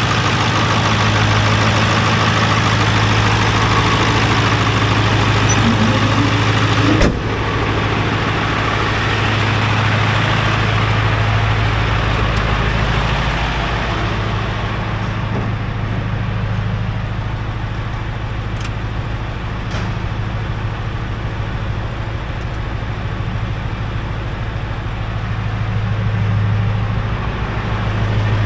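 Ford 7.3 L Power Stroke turbo-diesel V8 idling steadily, running after a no-start traced to a painted-over starter solenoid relay. There is a single sharp click about seven seconds in.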